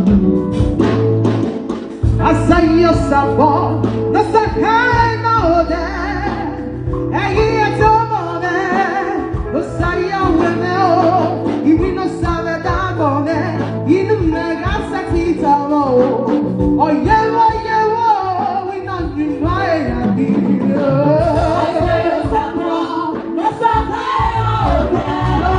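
Music with singing: voices sing a melody over a steady bass and band accompaniment, the singing coming in about two seconds in.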